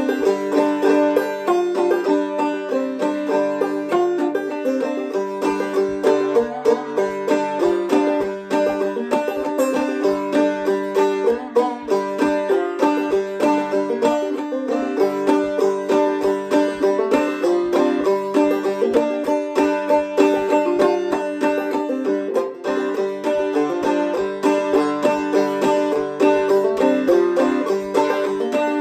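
Solo Deering Vega Senator open-back banjo played clawhammer style: a steady, driving rhythm of down-struck notes and brushes over a ringing drone, an old-time fiddle tune.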